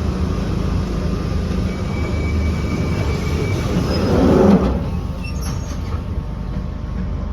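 London Underground 1996 Tube Stock train standing at the platform, its equipment giving a steady low hum, with a brief louder rushing noise about four seconds in.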